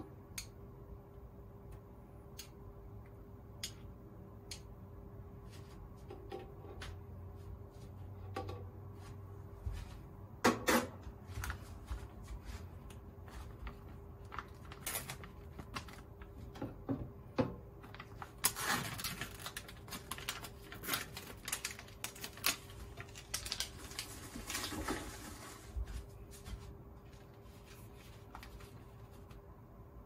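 A spoon stirring and clicking against a soup bowl, then plastic packaging crinkling and rustling as an instant-rice package is handled, over a steady faint hum. The loudest moments are a sharp clack about ten seconds in and a dense run of crinkling in the second half.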